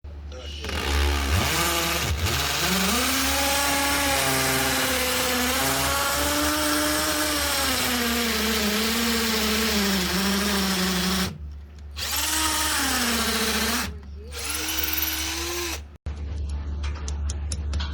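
Electric drill running in bursts, its motor whine rising and falling in pitch under load, with two short stops in the second half; this is the drilling of holes in the wall for plastic wall anchors.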